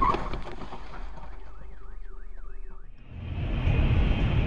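A car alarm warbles faintly in quick rising-and-falling sweeps, about three or four a second, for just over a second right after a collision. About three seconds in, the sound changes to a louder steady hiss of a car driving in rain on a wet road, as heard from a dashcam.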